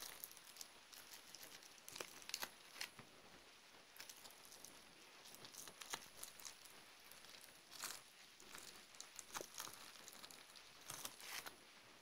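Fingers squeezing bubble wrap filled with green goo in a mock pimple extraction. The plastic gives a quiet crinkling and crackling in short bursts every second or two.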